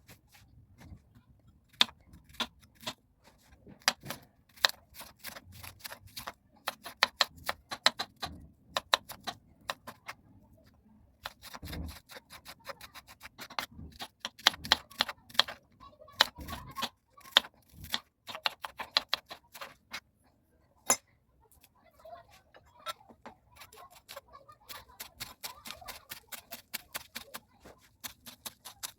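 Rapid, irregular clicking and light clatter of small hard objects knocking together, with a couple of duller knocks around the middle.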